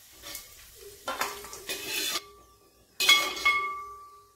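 Metal slotted spoon scraping and clinking against the pot as fried cashews and raisins are scooped out of hot ghee, with a light sizzle. There is a loud metal clank about three seconds in that rings briefly.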